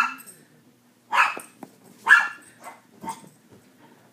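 Yorkshire terrier barking in short, high yaps at a balloon it is chasing: two sharp barks about a second apart, then a couple of fainter ones.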